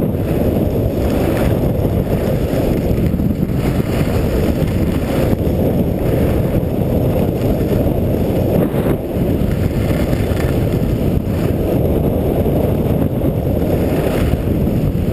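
Loud, steady wind rush on an action camera's microphone while skiing downhill, with the skis scraping on packed snow now and then.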